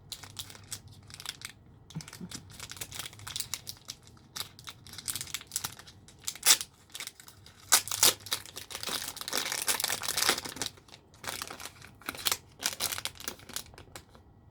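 Packaging crinkling and tearing in irregular bursts as a nail-stamping set is unwrapped by hand. The crinkling is busiest about eight to eleven seconds in.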